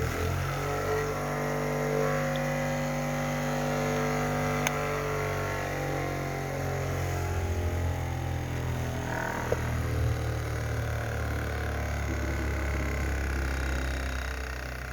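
Electric motor of a homemade sharpening machine running with a steady hum, with two brief sharp ticks, one about four and a half seconds in and another near the middle.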